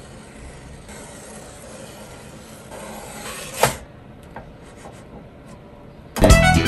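Spatula scraping along a griddle as it is worked under a pancake, with one sharper scrape about three and a half seconds in. Music comes in near the end.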